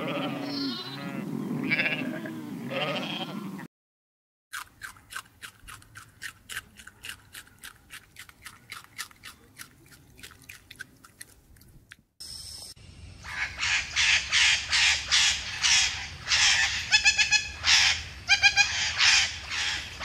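Sheep bleating for the first few seconds. After a short silence, a rabbit chewing leafy greens: a quick run of crisp crunches, about four a second. Then budgerigars chirping and chattering rapidly.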